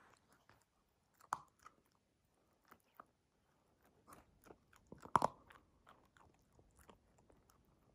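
Siberian husky puppy crunching dry kibble: a scatter of short, crisp crunches, the loudest about a second in and again about five seconds in.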